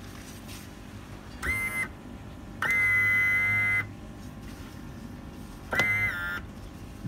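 An electric horn or buzzer sounds three times, short, long, short, each a high steady tone that slides up briefly as it starts. A low steady hum runs underneath.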